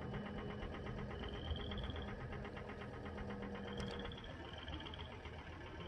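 A chorus of frogs calling, with a few short rising trills about half a second long over a dense, fast pulsing chorus. A steady low engine hum from a farm tractor runs underneath and fades out about two-thirds of the way through.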